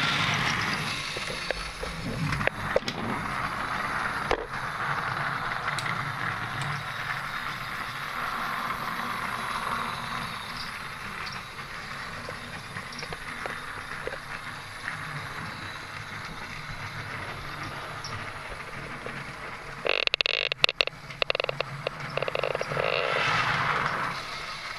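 Wooden toy engines and cars rolling along blue plastic Plarail track, a steady rumbling rattle of wooden wheels on plastic rail, with a burst of sharp clicks and clattering about twenty seconds in.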